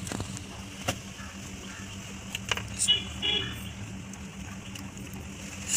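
A few light clicks and taps from small wires and a circuit board being handled on a workbench, over a steady low hum.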